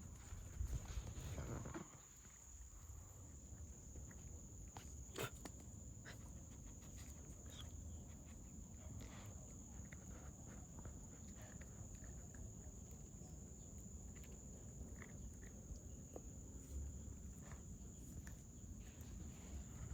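Steady high-pitched insect trill, typical of crickets, under scattered light clicks and rustles, with a louder rustling stretch in the first two seconds.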